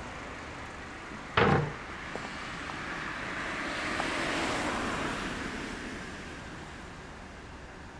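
Street traffic: a vehicle passes, its noise swelling and fading over a few seconds. About a second and a half in there is a single loud, short knock.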